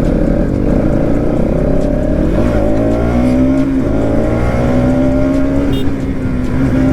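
Bajaj Pulsar NS200 single-cylinder engine running under way, its pitch rising and dipping slightly with the throttle.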